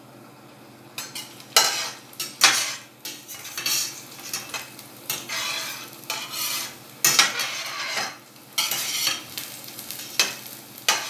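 A spatula stirring and scraping minced garlic frying in oil around a stainless steel pan. The strokes are irregular and start about a second in, some with a sharp scrape or clank against the pan.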